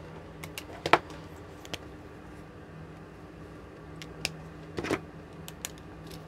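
Pens and a felt-tip marker being handled on a desk: put down, picked up and uncapped, giving a few short plastic clicks and taps, the sharpest about a second in and another group near the end, over a steady low hum.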